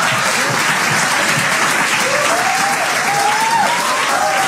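Comedy club audience applauding, a steady wash of clapping, with audience members laughing out loud over it from about halfway through.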